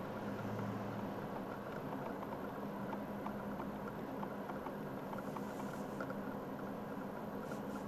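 Steady engine and road noise of a car driving, heard from inside the cabin, with a low steady hum and faint scattered ticks.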